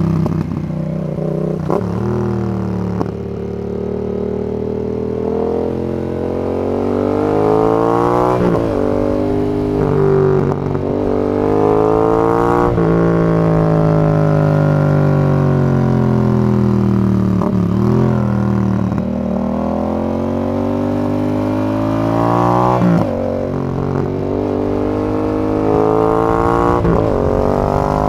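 Yamaha XSR 700's 689 cc parallel-twin engine through a Zard full exhaust system, pulling hard through the gears: the pitch climbs and drops back at each upshift. In the middle it winds down in one long falling pitch as the bike slows, then climbs through the gears again.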